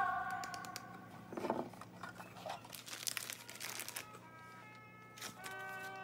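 A clear plastic bag crinkling and rustling off and on as it is handled, for a couple of seconds in the middle. Soft background music fades out at the start and comes back near the end.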